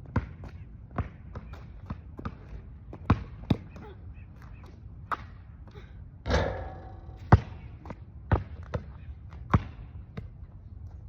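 A basketball bouncing on a hard court: about a dozen separate, irregularly spaced bounces. About six seconds in comes a longer impact that rings on for about half a second.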